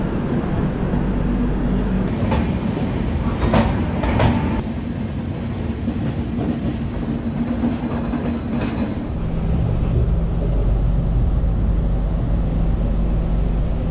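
Double-decker AC express train running on the rails, heard from on board: a steady low rumble with a few sharp clacks from the wheels.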